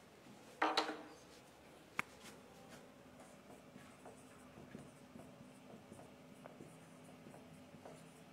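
Dry-erase marker writing on a whiteboard: faint, short squeaking and rubbing strokes as letters are written. About half a second in there is a brief louder scrape, and at two seconds a single sharp click.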